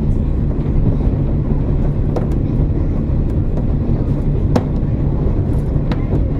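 KiHa 47 diesel railcar running, heard from inside the passenger car: a steady low drone of engine and wheels on rail, with a few sharp clicks scattered through it.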